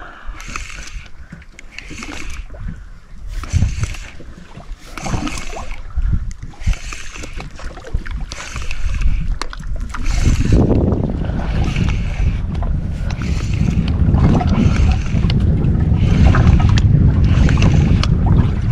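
Small fishing boat at sea: water and wind noise with a regular hiss recurring a little faster than once a second, joined about halfway through by a loud low rumble that continues to the end.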